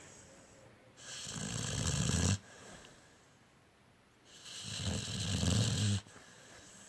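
Pit bull snoring in its sleep: two long snores, each growing louder and then stopping abruptly, about three seconds apart, with quiet breathing between.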